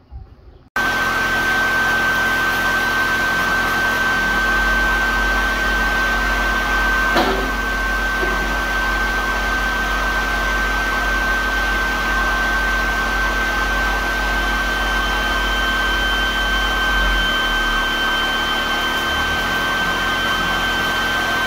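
Steady rush of a shop ventilation blower with a fixed high whine. A low hum comes in about four seconds in and drops out past the middle, a second, higher whine joins about two-thirds of the way through, and there is one short knock about seven seconds in.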